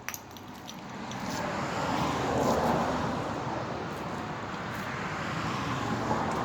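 A road vehicle passing by, its noise swelling to a peak a couple of seconds in and then easing off, with a faint click at the start.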